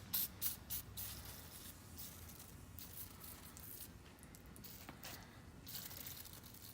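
Short hissing squirts of aerosol penetrating oil sprayed onto a seized old wrench to free it: a few quick bursts in the first second, then a longer one about five seconds in.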